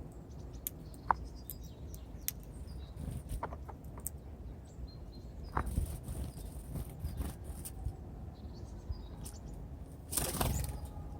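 Birds at a feeding tray: scattered sharp taps and pecks, a few short high calls, and a loud flurry of wingbeats near the end as a bird flies in or off.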